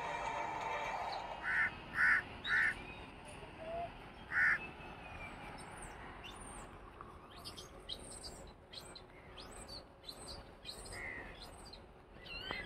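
A crow cawing: three caws in quick succession, then a fourth a couple of seconds later. After that, small birds twitter with quick high chirps.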